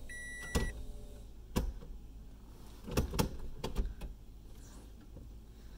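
Toyota Prius C's cabin chime sounding a single high beep as the gear selector goes into reverse, followed by several sharp clicks and knocks of the shifter being moved back to park.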